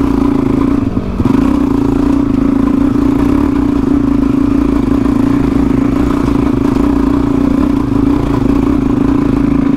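Dirt bike's single-cylinder four-stroke engine pulling at steady, fairly high revs up a steep hill-climb track, with a brief drop in revs about a second in.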